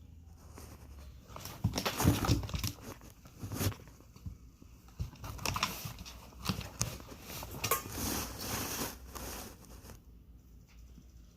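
A domestic cat chewing and tearing at a dead small bird, an irregular run of wet crunches and crinkling clicks as it works through the feathers, dying down near the end.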